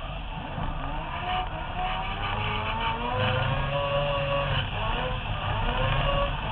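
Mazda RX-7 drift car's rotary engine revving hard under load, its pitch climbing over a few seconds, dropping, then climbing again near the end, heard from the car's roof.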